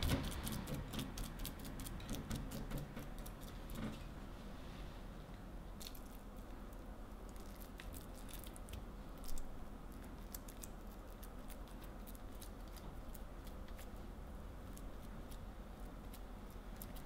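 Hands squeezing and kneading a raw ground-meat filling, wet squishing with many small sticky clicks, then pressing the filling into halved green peppers. One louder soft bump about nine seconds in.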